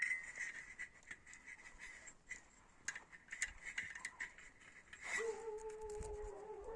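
Faint small metallic clicks and ticks of piston rings being handled and fitted onto a two-stroke motorcycle piston. About five seconds in comes a steady whining tone lasting about two seconds, which dips in pitch as it ends.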